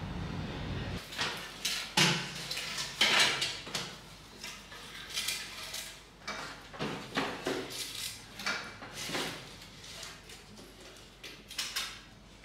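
Bamboo canes of a hanging rope-strung screen clacking and rattling against each other as they are handled and adjusted, in irregular knocks, the loudest about two and three seconds in.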